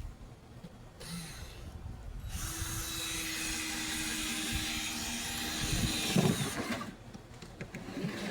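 Power drill driving deck screws into the wood: a brief burst about a second in, then a longer steady run of about four seconds, with a few knocks near its end.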